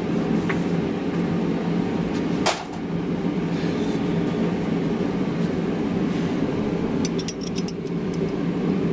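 1961 Buick 401 Nailhead V8 idling steadily, running a little rich. There is a sharp crack about two and a half seconds in, and a few light metallic clinks near the end.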